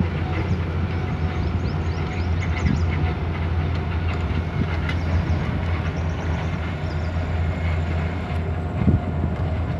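A vehicle driving, heard from inside the cabin: a steady low engine drone with rattling and clicking over the road, and a single knock near the end.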